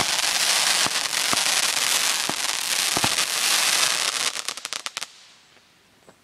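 Fireworks going off: a dense, continuous crackling with scattered sharper bangs, ending in a quick string of pops about four seconds in, then stopping abruptly about five seconds in.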